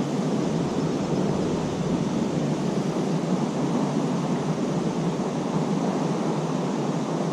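Steady rushing of fast-flowing river water running high after rain, an even hiss without pauses or distinct splashes.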